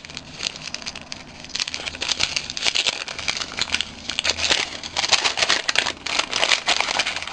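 Small packaging bag crinkling and rustling as it is handled and opened, in a run of irregular crackles.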